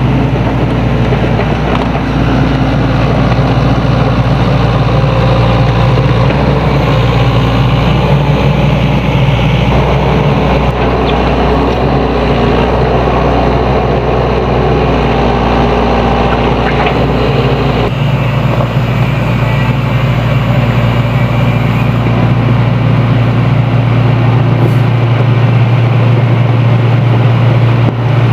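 Diesel engine of a Sany SY75C excavator running steadily under working load, a loud low drone. About eighteen seconds in, the higher part of the sound drops away, leaving the deep engine hum.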